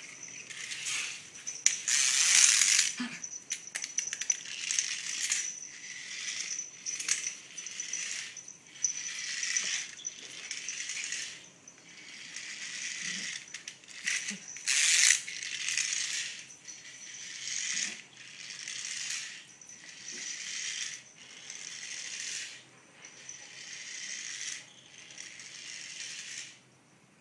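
Small dangling toy rattling and buzzing in short bursts about once a second, with a thin, steady high whine underneath. It stops shortly before the end.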